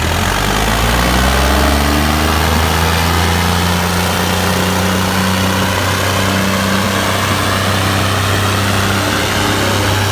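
Tractor diesel engines running hard under load in a tug-of-war. They rise in pitch over the first two seconds, then hold a steady, loud drone.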